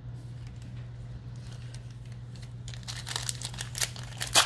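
Crinkling of a foil trading-card pack wrapper (2020 Panini Select baseball) being handled and opened. The crackling starts about two-thirds of the way in and comes in quick irregular bursts, with a sharp loud crackle near the end, over a steady low hum.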